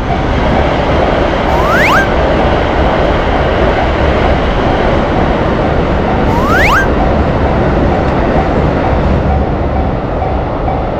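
Japanese railroad crossing alarm ringing in a steady, even rhythm over the rumble of a passing electric train. A rising whistle-like sweep sounds three times, about every four and a half seconds.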